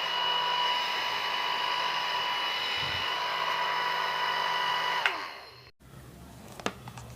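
A Nova NV-1290 1000-watt hand-held hair dryer running with a steady whirring whine, which stops about five seconds in and quickly dies away, followed by a few faint clicks.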